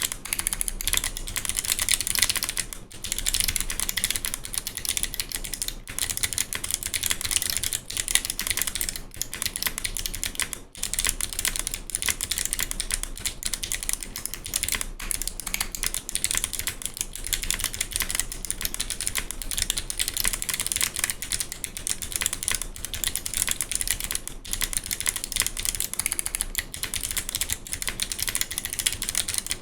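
Continuous fast typing on a mechanical keyboard with Kailh Box Navy clicky switches and GMK keycaps: a dense stream of sharp, heavy clicks, broken by a few brief pauses.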